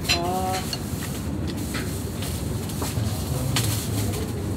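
Ramen stall kitchen sounds: scattered clinks and knocks of bowls and utensils over a steady sizzling hiss.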